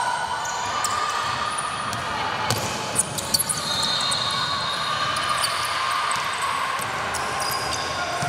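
Basketball game on an indoor court: the ball bounces in scattered knocks, with brief high squeaks and a background of voices echoing in the hall.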